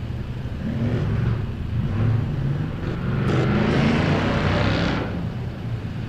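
Off-road competition truck's engine revving in surges as the truck works its way down into a rocky creek bed. It is loudest from about three to five seconds in, with a harsh rush of noise over the engine note.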